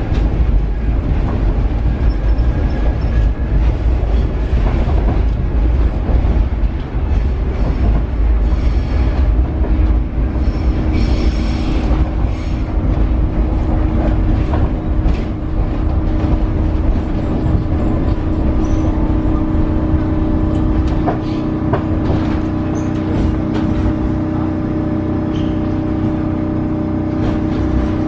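Paris Metro train running on rails: a heavy low rumble with clatter and clicks from the wheels, joined about a third of the way in by a steady humming tone. About two-thirds of the way through, the rumble eases while the hum carries on.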